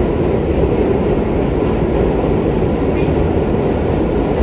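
R68 subway car running through the tunnel, heard from inside the car: a steady, loud rumble of wheels on rail.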